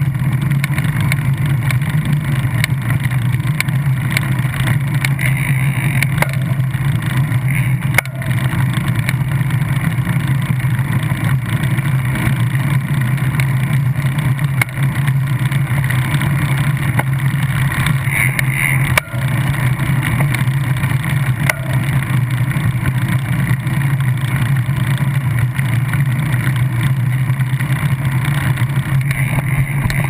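Steady rumble and vibration picked up by a camera mounted at a bicycle wheel's quick-release skewer while riding. Two short knocks from bumps come through, one about a quarter of the way in and another about two-thirds in.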